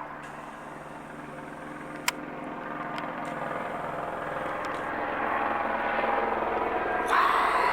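Police helicopter overhead, its rotor and engine making a steady drone that grows steadily louder as it comes nearer, with a single sharp click about two seconds in.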